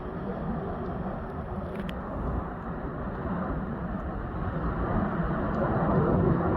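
Steady outdoor noise, heaviest in the low end and growing louder toward the end, with a faint click about two seconds in.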